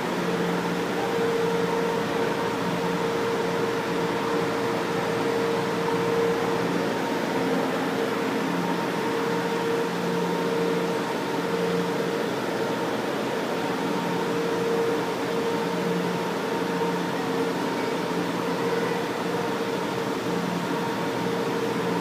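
São Paulo Metro fleet I subway train standing at the platform with its doors open, its onboard equipment giving a steady hum and fan-like whir with a few held tones.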